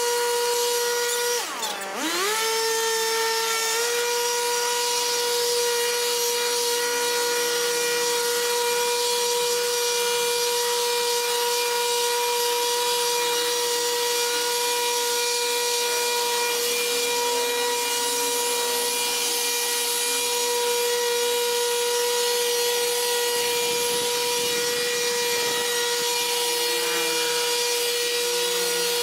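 Small petrol engine of a grass-clearing brush cutter running at a steady high pitch. About one and a half seconds in the engine note drops sharply and climbs back, as when the throttle is let off and opened again, then holds high.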